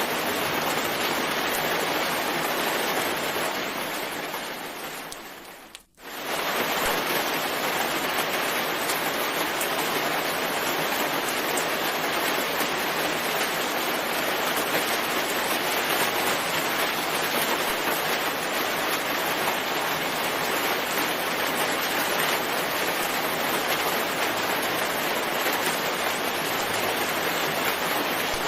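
Steady rain, an even hiss. About four seconds in it fades down to near silence, then comes back quickly just after six seconds and carries on unchanged.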